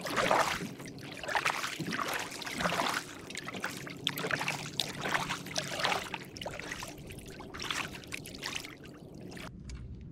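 Kayak paddle strokes: blades dipping and splashing in the water, with water trickling off them, in uneven strokes about every second, stopping shortly before the end.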